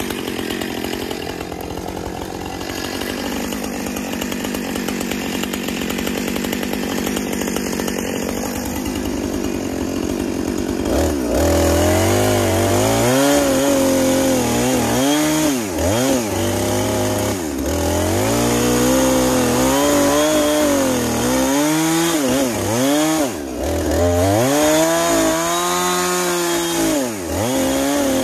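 Husqvarna 455 Rancher two-stroke chainsaw running at a steady lower speed, then about eleven seconds in opened up louder for cutting branches in a brush pile. Its engine pitch dips sharply and climbs back several times as the throttle is let off and squeezed again.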